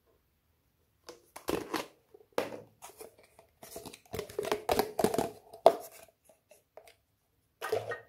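Glossy slime being pressed and stretched by hand, giving a run of sticky pops and crackles from about a second in, with a last short cluster near the end.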